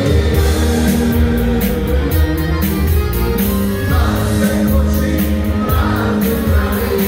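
Live amplified band playing Bosnian folk-pop, with keyboard and accordion, a steady beat from the drums and singing over it.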